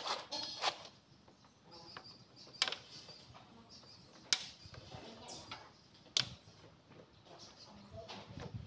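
Pliers clicking and tapping against rusted steel on a tractor's steering linkage: a handful of sharp metallic clicks a second or two apart, over low background.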